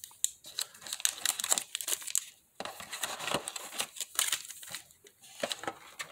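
Foil Pokémon booster pack wrappers crinkling as a stack of packs is handled and shuffled, in irregular bursts of crackles with a couple of short lulls.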